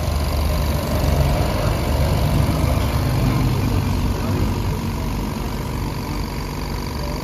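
A motor running steadily with a low hum and a faint steady high whine, a little louder a second or two in.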